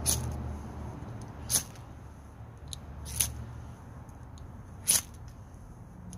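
Ferrocerium rod (fire steel) being scraped hard, four short, sharp rasping strikes about a second and a half apart, throwing sparks.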